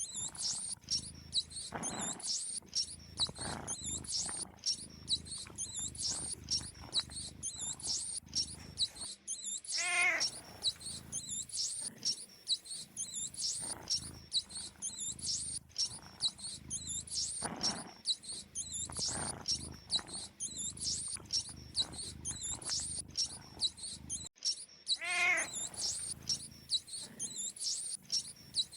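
Mice squeaking: rapid, high-pitched chirping squeaks without a break. A longer, lower wavering call sounds twice, and there are a few soft scratching rustles, all repeating in a loop.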